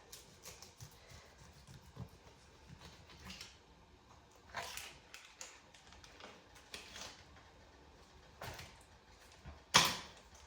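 Scattered soft kitchen handling noises from food prep, with one sharp clack near the end.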